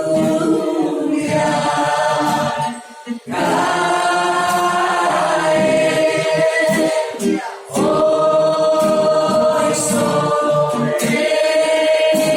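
Choir singing a Spanish worship song in long held phrases, with short breaks about three and seven and a half seconds in.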